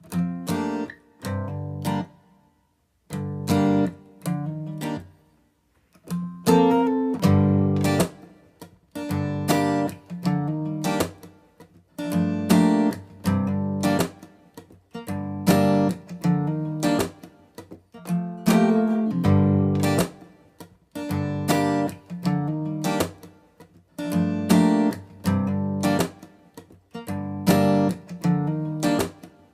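Background music: a strummed acoustic guitar playing repeated chords, each struck sharply and left to ring.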